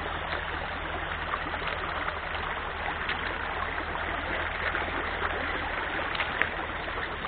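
Small stream running over rocks and gravel through a shallow riffle: a steady rush of water, with a single sharp click about six seconds in.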